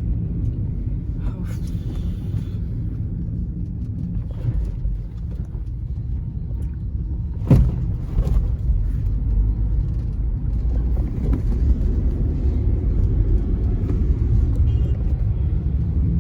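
Steady low road-and-engine rumble inside a moving car, with one sharp knock about seven and a half seconds in.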